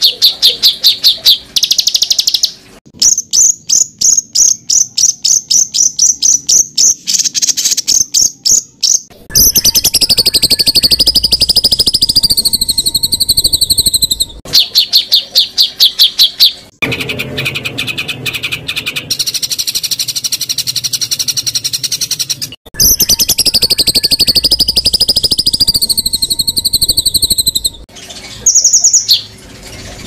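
Montage of calls from several songbird species, made as rapid-fire 'tembakan' training material. Fast strings of sharp, repeated high notes alternate with longer wavering whistles, and each section cuts abruptly to the next every few seconds.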